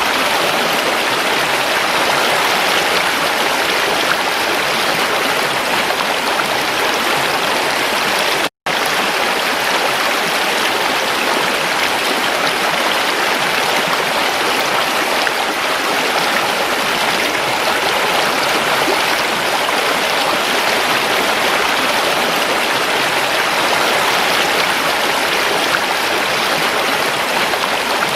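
Creek water rushing steadily over rocks, an even, dense babble. It cuts out for a split second about eight and a half seconds in.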